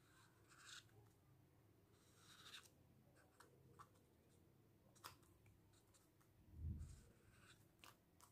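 Faint scratching strokes of a marker pen drawing on paper card, a few short strokes with pauses between them, and a soft low bump of hands against the sketchbook about two-thirds of the way in.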